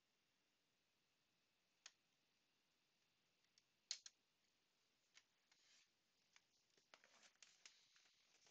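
Near silence with a few faint plastic clicks, the loudest about four seconds in, and light rustling near the end, as a graded-card plastic slab is set down and cards are handled.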